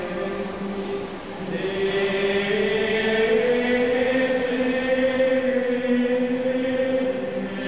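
Voices singing a slow chant in long held notes, each note stepping to a new pitch after a second or two, with a brief lull about a second in.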